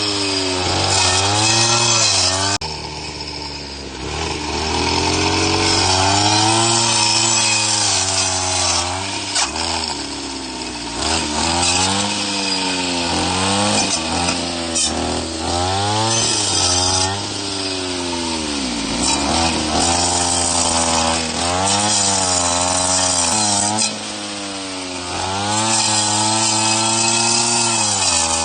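Brush cutter engine running hard with a 20-tooth saw blade cutting, its pitch dipping under load and climbing back again and again as the blade bites and clears. It eases off briefly about three seconds in.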